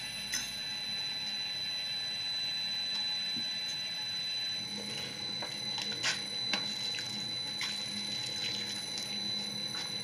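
Motorized stone-mortar grinding mill churning wet pigment paste with water: a steady wet swishing over a machine hum, with a few sharp knocks in the second half.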